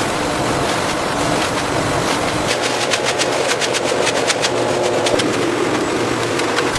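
Factory production machinery running steadily, with a fast, irregular clatter of clicks starting about two and a half seconds in and going on until near the end.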